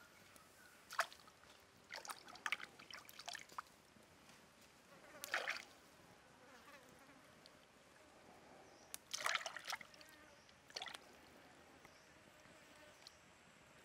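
Hands splashing and dabbling in a shallow stream while rinsing food, a few short splashes scattered through, over the faint steady trickle of the flowing water.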